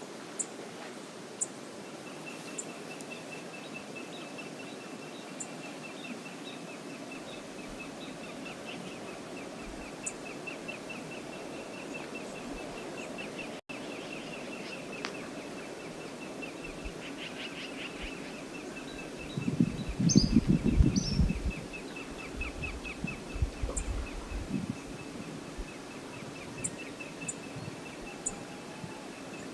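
Steady rush of river water, with a rapid, high, pulsing trill running over it. About two-thirds of the way through comes a brief cluster of loud low thumps and rumbles.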